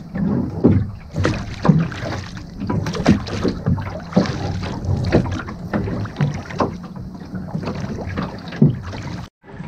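Wooden oars working in metal rowlocks as a small rowing boat is rowed backwards: irregular knocks and splashes of the strokes over steady water and wind noise, cutting out briefly near the end.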